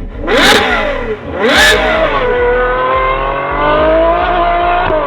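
Ferrari F12's V12 revving through an aftermarket exhaust: two quick, sharp blips in the first two seconds, then a long loud note whose pitch climbs slowly and steadily.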